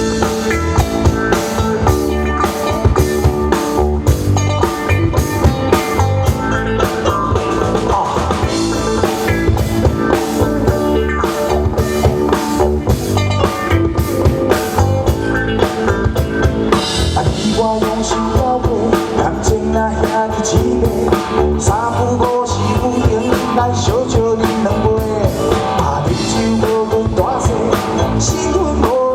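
Rock band playing: a drum kit keeping a steady driving beat under bass and electric guitar.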